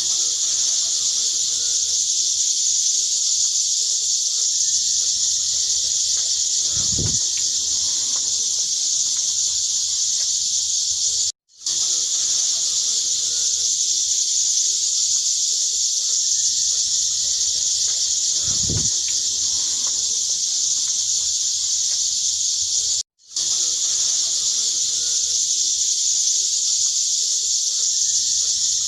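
A loud, steady high-pitched hiss. It cuts out briefly twice, about eleven and a half seconds apart, and each time the same stretch of sound starts over as a loop.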